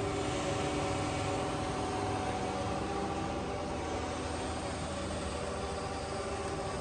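Freeport SGS-1632AHD surface grinder running with its spindle and grinding wheel turning: a steady hum carrying several steady tones over a hiss. There is no extra noise from the spindle while the wheel works, a sign of a sound spindle.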